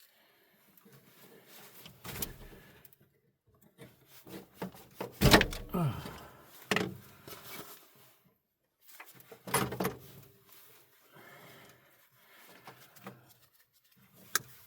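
Irregular knocks, clunks and rubbing from hands working tools and parts on a battery cable, loudest about five seconds in and again near ten seconds.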